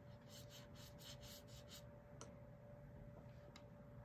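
Faint swishes of a watercolor brush stroking across paper, about six quick strokes in the first two seconds, then a couple of light ticks, over a faint steady hum.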